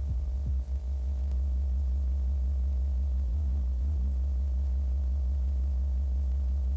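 A low, steady electronic hum: a buzzy drone with many evenly spaced overtones that holds unchanged throughout.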